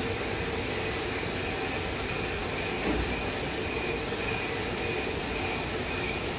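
Heavy-duty metal shaping machine running: a steady mechanical drone with a faint steady whine, and a slight low thump about three seconds in.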